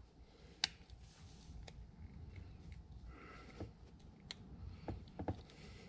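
Snap ring pliers clicking faintly against a small horseshoe-shaped snap ring on a lathe change-gear shaft: a handful of sharp metal ticks, one early and a cluster in the second half.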